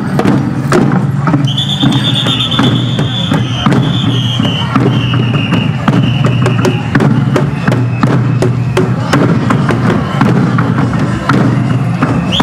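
A comparsa's hand-held cajas (double-headed drums) beaten with sticks, many sharp strikes in a running rhythm. A high, steady held tone sounds over the drumming from about a second and a half in until about halfway through.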